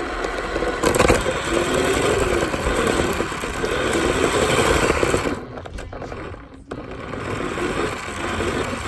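Toy car's small motor whining with a wavering pitch, with the wheels rattling and scraping over the ground. It drops away briefly between about five and seven seconds in, then picks up again.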